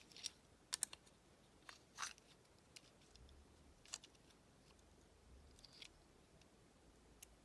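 Faint, scattered clicks and taps of a measuring tool being handled against a lock pick handle, about half a dozen over near silence.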